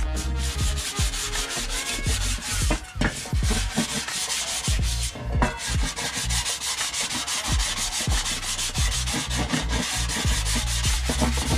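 Abrasive sponge scrubbing rust off a black enamelled metal stovetop panel, several quick back-and-forth strokes a second, a steady gritty rasping.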